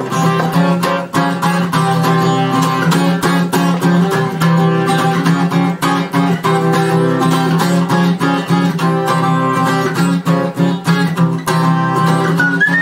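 Music: a strummed acoustic guitar keeping a steady, even rhythm.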